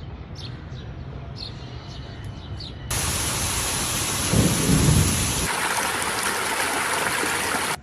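Faint high chirps over a low hum, then about three seconds in heavy rain starts suddenly. A low rumble of thunder comes about a second later and lasts about a second.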